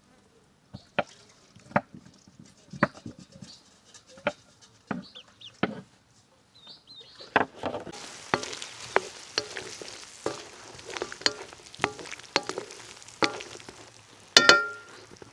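Sharp, irregular knocks of a utensil against a cooking pot. About halfway through, a sizzle begins as food starts frying in the pot, and the stirring knocks go on over it. One louder, ringing metallic clang comes near the end.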